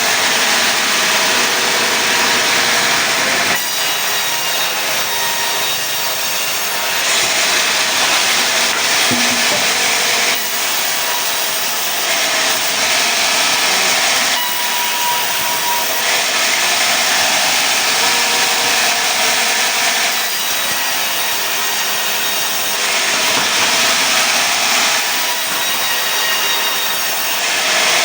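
Sawmill saw cutting through pine timber, a loud continuous noise whose tone shifts every few seconds as the cut goes on.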